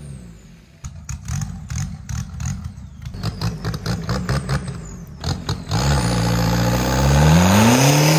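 Volkswagen Mark V TDI four-cylinder turbodiesel running with an uneven low rumble and knocks, then revved up about six seconds in and held at high revs. This is a high-RPM test of whether a suspect alternator will lock up again.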